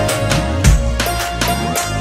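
Background music with a steady beat, a long held note and deep bass hits.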